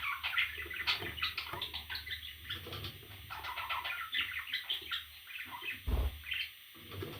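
Parrot chicks chirping in rapid, overlapping calls, with a short low thud about six seconds in.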